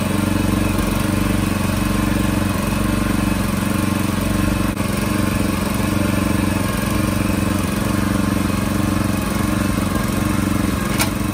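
Small gasoline engine of a Salsco round-bale wrapper running loud and steady at an even, unchanging speed.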